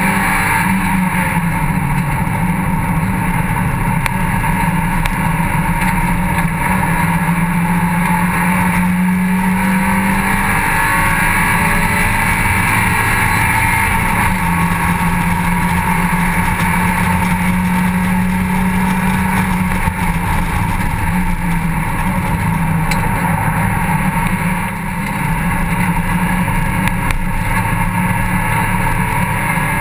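Mazda MX-5 cup racer's four-cylinder engine running hard on track, heard from inside the open cockpit along with rushing wind. The engine note falls and climbs again several times, with a short dip in level near the end.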